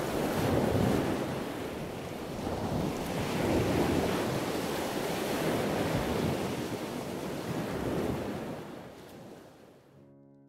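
Waves washing in with wind, swelling and easing every couple of seconds, with wind rumbling on the microphone. It fades out near the end, and piano music begins.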